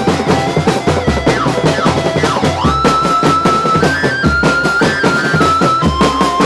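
Live drum band playing a fast steady beat on large bass drums and tenor drums, with a high melody line over it that slides between notes.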